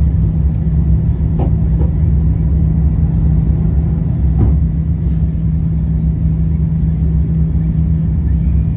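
Cabin noise of an Airbus A350-900 climbing after takeoff: the steady rumble and low drone of its Rolls-Royce Trent XWB engines at climb power, heard from inside the cabin.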